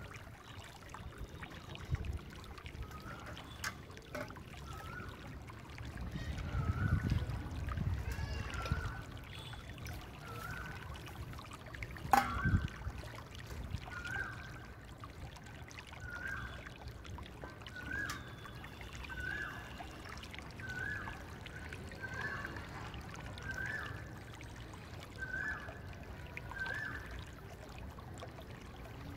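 Stainless steel pots dipped and rinsed in a wide steel basin of soapy water: water pouring and trickling, with one sharp steel knock about twelve seconds in. A short high chirp repeats about every second and a half through most of it.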